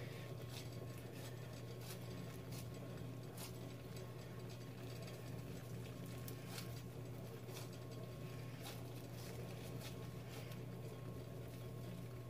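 Hands kneading and squeezing homemade shampoo slime: faint scattered wet clicks and squishes over a steady low hum.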